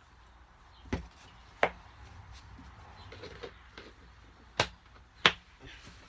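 Four sharp knocks of kitchen utensils against a container while cornstarch is measured out, two close together about a second in and two more near the end.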